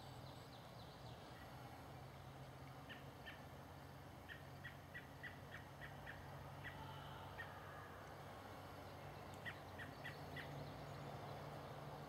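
Faint bird chirps: short, separate high notes in loose runs of quick calls, over a low steady hum.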